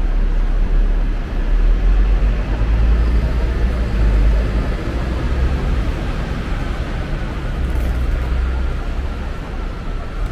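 Steady low rumble of a moving road vehicle, with a faint whine that slowly falls in pitch.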